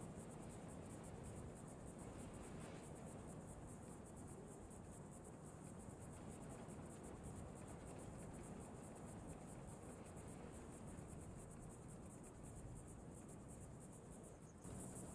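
Faint crickets chirring in a steady, high, fast-pulsed trill over a low background hiss. The trill drops out briefly near the end, then returns louder.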